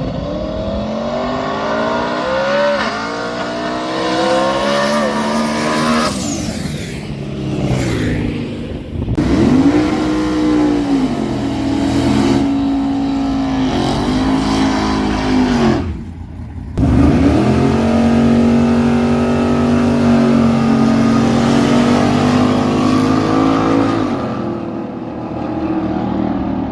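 Drag race car engines revving hard, their pitch repeatedly climbing and dropping. Near the end comes a long steady high-rpm pull that fades away.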